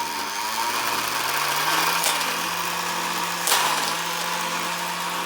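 Combat robot's spinning weapon spun up to full power and running steadily with a hum that rises slightly at first, over a loud rush of noise. Sharp knocks cut through it about two seconds in and again about three and a half seconds in.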